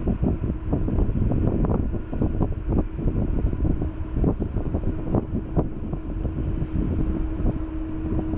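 Boeing 777-200ER's Pratt & Whitney turbofan engines idling as the airliner taxis onto the runway: a deep rumble with a steady hum, under gusty wind buffeting on the microphone.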